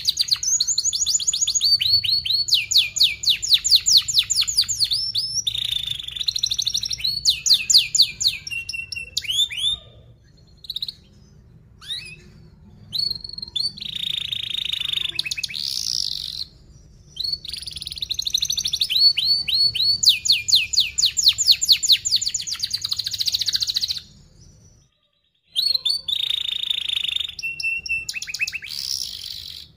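Domestic canary singing a fast, dense song of rolling trills and rapid chirps, high-pitched, broken by short pauses a third of the way in and a brief complete break near the end.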